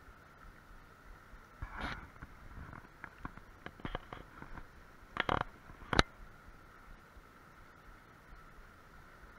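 Steady rush of a fast-flowing stream, with rustling and clicks of handling close to the microphone between about one and a half and six seconds in, ending in one sharp knock.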